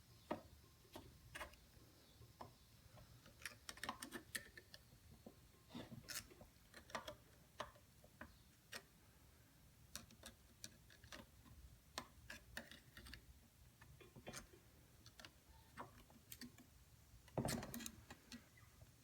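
Scattered faint metal clicks and light taps at irregular spacing, from small parts of the drill press's spring tensioning assembly being worked loose and pulled out of the head. There is a longer, louder noise near the end.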